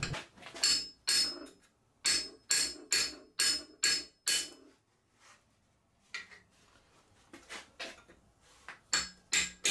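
Hammer blows on a metal tool set against a stuck cylinder liner in an AC 2-litre engine's alloy block, the liner already hacksawn lengthways so that pieces can be broken off. Sharp metallic strikes with a short ring, about two a second for the first four seconds, then a lull with a few light taps and a quicker run of strikes near the end.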